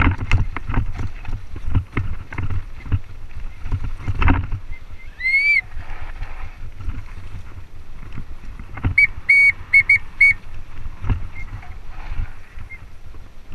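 Mountain bike clattering and rattling over a rough, rocky dirt trail on a descent, with wind rumbling on the microphone. A short rising squeal comes about five seconds in, and a run of five short high squeaks follows about nine seconds in.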